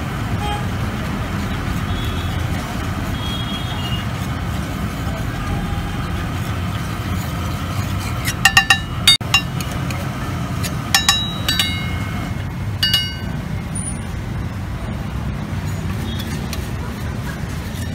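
Steel spatula clinking and scraping against a flat iron griddle as an egg fries, with a few sharp metallic strikes in clusters about halfway through, over a steady low background rumble.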